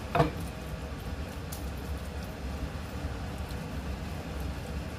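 A single short knock of kitchenware just after the start, over a steady low hum.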